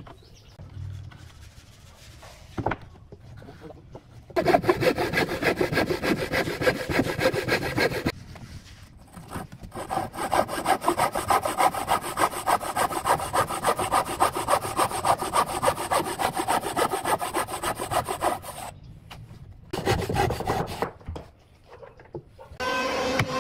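Wooden frame saw cutting across a wooden board by hand, in fast, even back-and-forth strokes. The sawing starts after a few quiet seconds with a few light taps, runs for about four seconds, pauses briefly, then goes on for about nine seconds, with a short last run near the end.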